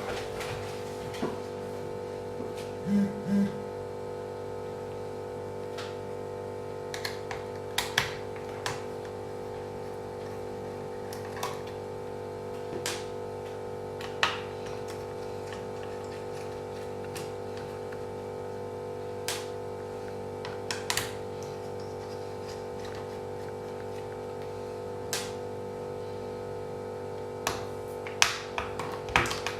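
Steady electrical hum with scattered small clicks and taps, the sounds of a laptop's plastic case and parts being handled and taken apart.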